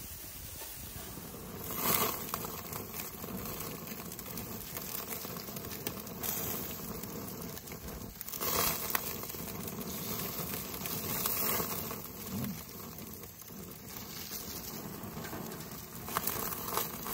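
Burger patties sizzling and crackling on a propane gas grill over open flame, with a few brief louder swells of hiss.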